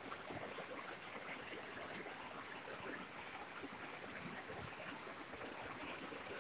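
Heavy rain falling steadily on trees, grass and ground, a continuous even hiss with occasional low rumbles.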